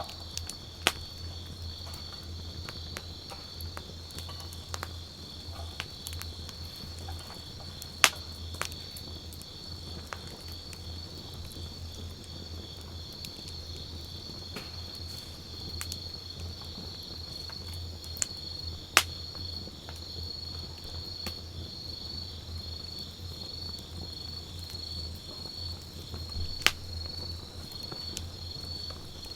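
Wood campfire burning with a low steady rumble and a few sharp crackling pops, the loudest about 8 s in and others near 19 and 27 s. A high-pitched insect trills steadily throughout.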